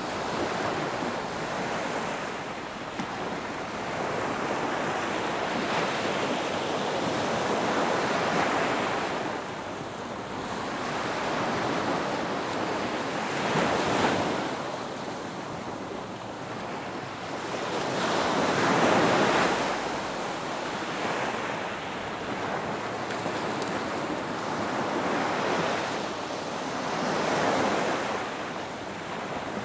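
Ocean surf breaking on a beach: a steady wash of water noise, with a wave swelling and crashing every several seconds, about four times.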